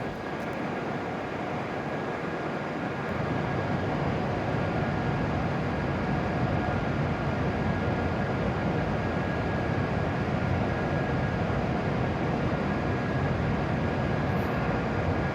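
E7-series shinkansen train at the platform, giving a steady mechanical hum with a few faint steady tones, growing a little louder over the first few seconds and then holding level.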